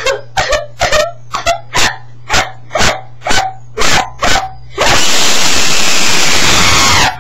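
A person's hiccups coming out as short, sharp dog-like barks, about a dozen in quick succession, roughly two a second. Near the end a loud hiss of noise cuts in for about two seconds and stops abruptly.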